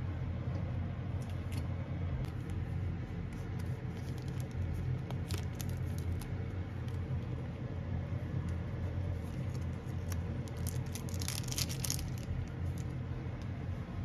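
Pot of instant ramen on the cooktop giving a steady low hum, with a seasoning packet crinkling and its contents pattering into the broth in short bursts, loudest around eleven seconds in.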